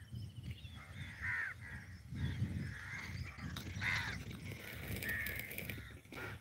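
Crows cawing several times, the loudest caw about four seconds in, over a low uneven rumble.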